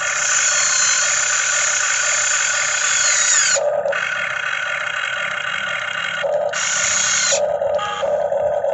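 Huina RC excavator's electric motors and gearboxes whining as the machine works, stopping and starting several times, with the pitch sliding at one point.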